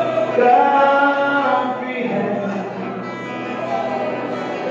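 Worship singing of a Hindi worship song, voices holding long sung notes.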